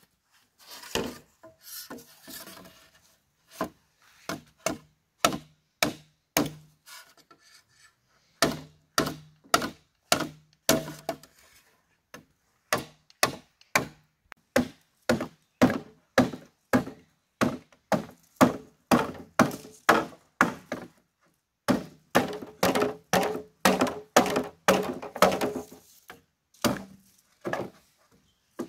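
A tool striking bamboo again and again, about one to two blows a second, with a short pause about a third of the way in and quicker blows near the end. Many blows leave a brief hollow ring.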